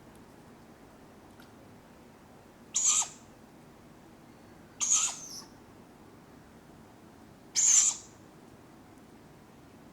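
Tawny owlets giving their harsh, hissing food-begging calls: three short screeches, each about half a second long, spaced two to three seconds apart over faint woodland background hiss.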